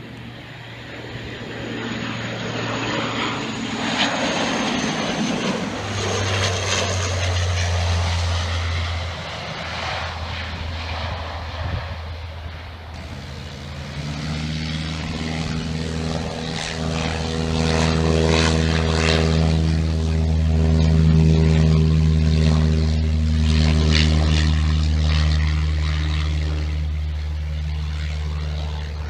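Saab 2000 turboprop airliner on landing approach: a high turbine whine that falls slightly in pitch over broad engine and propeller noise, growing louder. About halfway through the sound cuts to a small single-engine propeller plane's piston engine and propeller running steadily with a low, even hum, loudest a little past the middle and easing near the end.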